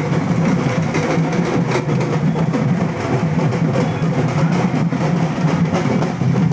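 Loud, dense drumming with music from a street procession, going on without a break.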